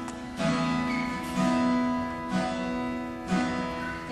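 Slow instrumental music: notes struck and held, a new chord about once a second.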